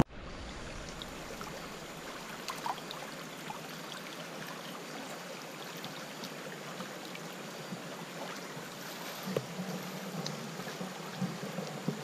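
Small muddy stream flowing, a steady, even rush of water, with a few faint ticks and splashes near the end.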